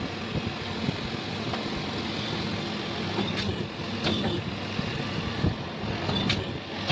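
Hydraulic single-die paper plate machine running: a steady hum from its motor-driven hydraulic pump, with a few sharp clicks from the machine.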